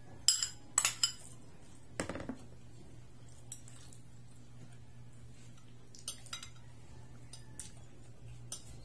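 A metal spoon clinks sharply against a white serving bowl three times as rice is scraped out onto a plate, then a duller knock about two seconds in as the bowl is set down. After that come a few scattered light clicks of spoon and fork on the plate over a faint steady hum.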